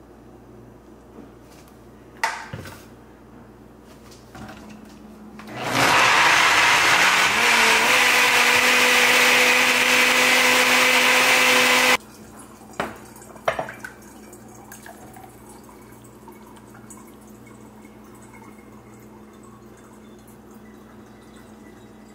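Personal blender blending a smoothie for about six seconds: its pitch climbs a little in the first couple of seconds, then holds steady until it stops abruptly. A knock comes a few seconds before it starts and two more just after it stops.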